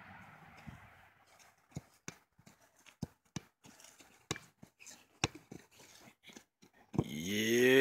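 Soccer ball being juggled on grass: a series of short, sharp taps as foot and knee strike the ball, about a dozen spread unevenly over several seconds. About seven seconds in, a loud, drawn-out vocal cry begins.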